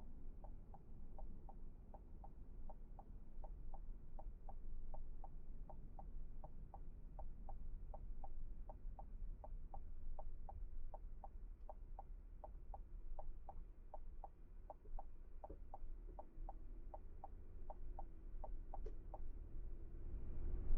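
Car's turn-signal indicator ticking steadily for a left turn, about two and a half ticks a second in on/off pairs, over the low hum of the car; the ticking stops about a second before the end.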